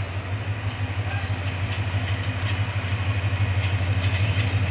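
Metre-gauge diesel-electric locomotive approaching slowly at the head of a passenger train, its engine running with a low, pulsing drone that grows louder as it nears.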